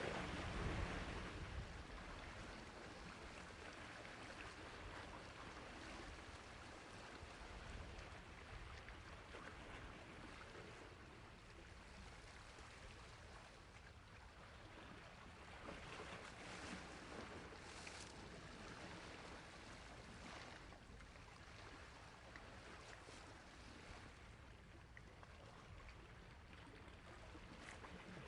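Sea waves washing on a shore: a steady, faint rush of surf that swells louder in the first second or so and again near the end.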